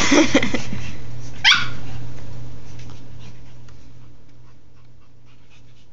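Pug puppy barking during rough play, with a sharp, quick rising yelp about a second and a half in, then fainter light clicks as it quiets down.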